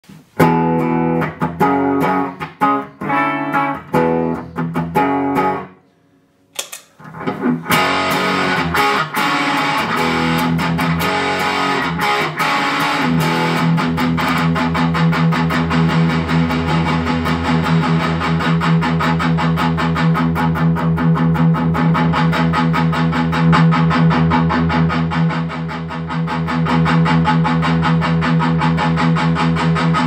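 Electric guitar through a Pro Co RAT2 distortion pedal and a Boss GE-7 equalizer: short distorted chords choked off between hits, a brief pause, then a low open string picked fast and evenly. The tone of the picked note shifts as the distortion pedal's knobs are turned.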